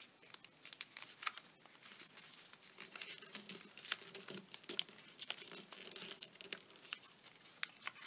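Origami paper being handled and pre-creased, crinkling faintly with many small irregular crackles.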